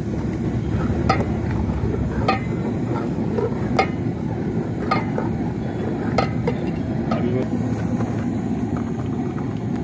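Steel ladle stirring curry in a large aluminium pot, clinking against the pot about six times, roughly a second apart, over a steady low rumble.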